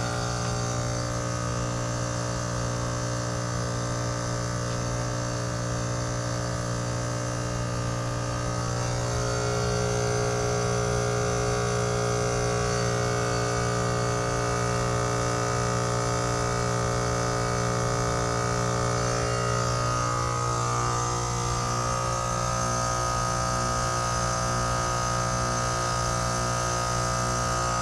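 Trane XR14 heat pump's outdoor unit compressor running in defrost mode: a steady, many-toned electrical hum that shifts slightly in pitch about nine seconds in and again around twenty seconds.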